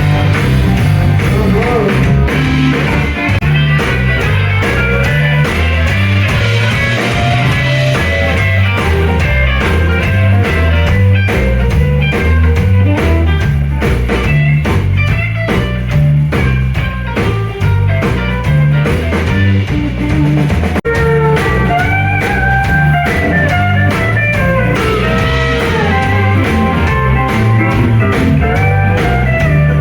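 Blues-rock music: electric guitar lines over a walking bass and drum kit, with a steady beat.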